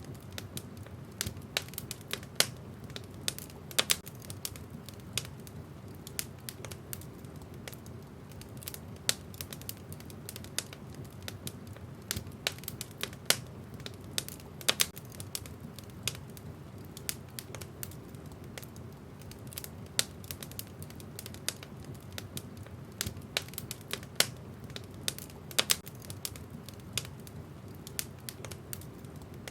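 Wood fire burning in a fireplace, crackling with irregular sharp pops and snaps several times a second over a low, steady sound of burning.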